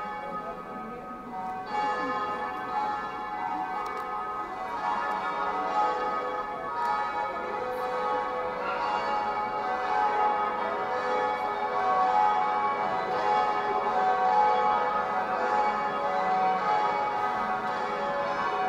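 Bells ringing together, many overlapping tones that keep sounding, with fresh strikes now and then; louder from about two seconds in.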